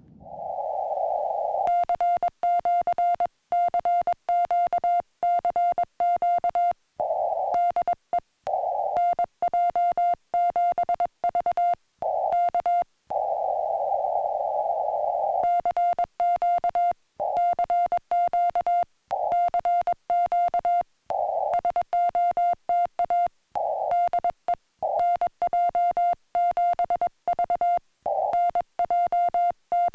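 Morse code (CW) from a portable ham radio transceiver: a single steady beep keyed quickly in dots and dashes, with pauses filled by the hiss of the receiver's narrow CW filter.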